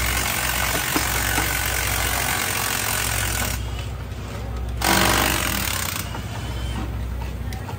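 Power tools rattling in rapid bursts over a steady low hum as a pit crew strips down a top fuel dragster's blown engine, with a louder burst about five seconds in.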